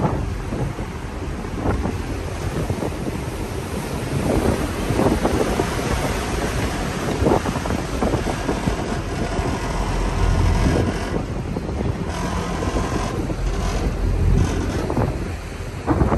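Wind buffeting the microphone over the low rumble of a river boat's engine and water, with the rumble heavier about ten seconds in.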